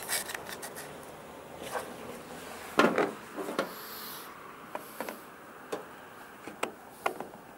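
Needle-nose pliers and fingers working a spring out of a plastic mower drive assembly: irregular small clicks and scrapes, loudest in a short cluster about three seconds in.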